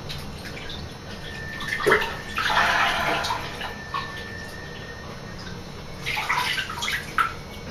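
Bathwater sloshing and splashing in a tub as the people sitting in it move, in two spells: a longer one about two seconds in and a shorter one about six seconds in.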